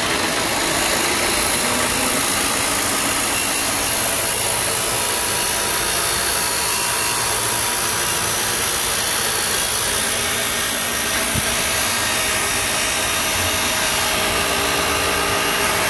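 Abrasive chop saw with its cut-off wheel grinding through a chromed steel exhaust pipe, a steady harsh whine and hiss of the disc cutting metal.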